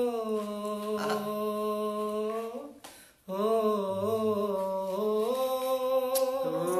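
A man singing poetry in tarannum style, holding long drawn-out notes without clear words that bend slowly up and down in pitch. He stops briefly about three seconds in, then carries on.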